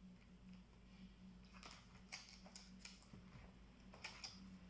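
Faint plastic clicks and taps, about six scattered over a few seconds, as the palmrest of a Lenovo ThinkPad Edge laptop is unclipped and lifted off the base. A low steady hum runs underneath.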